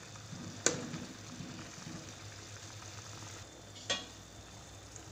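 A spoon stirring vegetable soup in a stainless-steel pot over a soft simmering hiss, with two sharp clinks of the spoon against the metal pot, the first under a second in and the second, with a short ring, about four seconds in. A low steady hum runs underneath.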